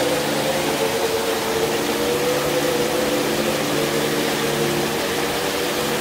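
A steady hum of several held low tones that does not change, over an even rushing hiss of stream water running down rocky cascades into a pool.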